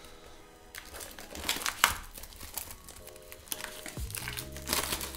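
Hands sliding and pulling apart the cardboard packaging of an Upper Deck The Cup hockey card box: irregular crinkling and scraping of card and paper. Soft background music runs underneath.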